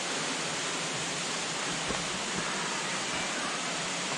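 Steady rush of falling water from a waterfall, with a couple of faint thuds about two seconds in.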